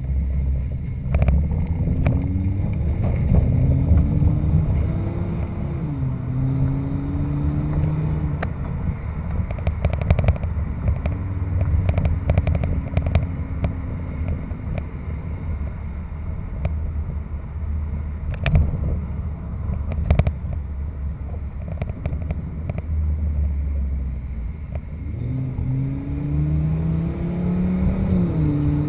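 Car engine accelerating through the gears: the note rises, drops suddenly at a gear change about six seconds in, then settles into steadier cruising with road noise before rising again and shifting once more near the end.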